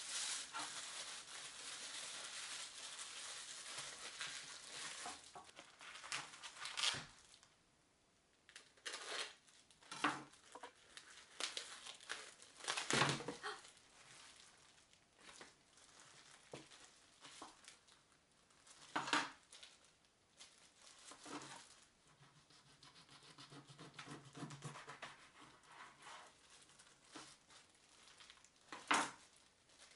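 Plastic wrap and disposable plastic gloves crinkling steadily as raw chicken is unwrapped from its packaging, then scattered sharp knocks and taps from the meat trays and a knife on a plastic cutting board, the loudest about halfway through and near the end.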